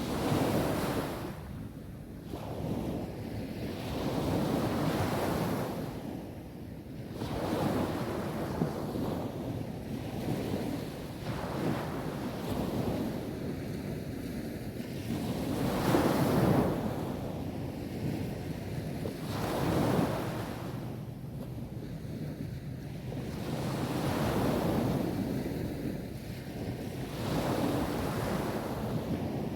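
Sea waves breaking and washing up a beach, each wave swelling and fading, a new one every three to four seconds, the biggest about halfway through.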